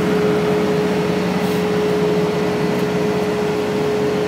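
A machine or engine running steadily: a loud, even drone with one constant humming tone and no change in pitch.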